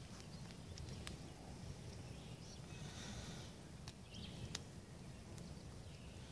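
A strand of waxed jute twine burning with a small flame, giving a few faint, sharp crackles over a quiet outdoor background.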